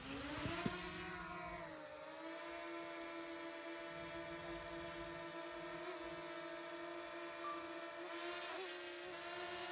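A small motor switching on with a click and running with a steady whine.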